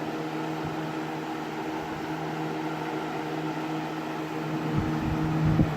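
20-inch Galaxy box fan (model 3713) with plastic blades running steadily on high: a rush of moving air over a low motor hum. Its motor has not yet been oiled. A few low thumps come near the end.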